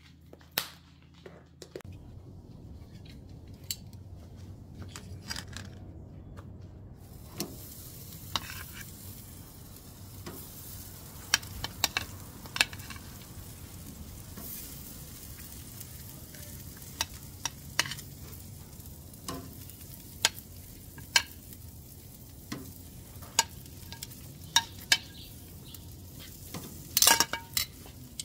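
Lobster tails sizzling on a hot grill grate, with sharp clicks and clinks of metal tongs against the grate as the tails are set down and moved. The sizzling hiss sets in about seven seconds in, and a quick cluster of clinks comes near the end.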